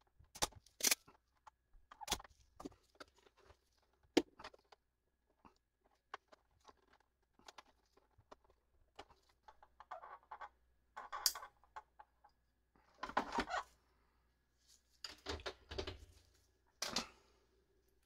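Spring-loaded desoldering pump snapping a few times in the first seconds as solder is sucked from a capacitor's joints on a circuit board. This is followed by scattered rustling and knocking as the board and its plastic case are handled.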